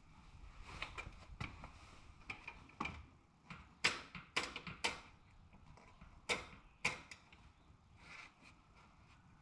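About a dozen sharp, irregularly spaced metal clicks and knocks from a boot working a Harley-Davidson's foot shift lever with the engine off, the lever newly refitted on fresh shaft bushings. The clicks come most closely together from about three to five seconds in.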